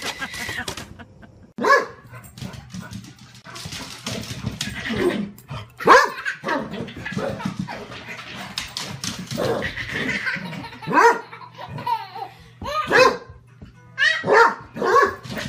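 A dog barking in short, high yips, repeated every second or two and coming faster near the end.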